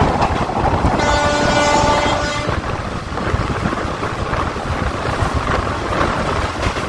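A train horn sounds once for about a second and a half, a steady multi-tone blast, over the constant rumble of a passenger train pulling out of a station.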